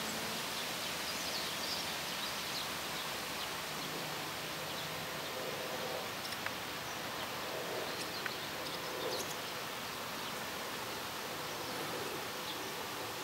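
Steady outdoor hiss of rustling air over open grassland, with faint, short, high chirps now and then and a couple of small clicks.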